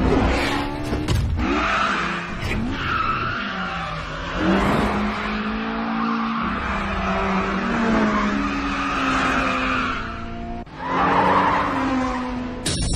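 Two racing car engines, a Toyota AE86 and a Honda Civic Type R EK9, revving hard, their pitch dropping and climbing through the corners. Tyres squeal under them as the cars slide through the hairpins, with a louder burst of tyre squeal near the end.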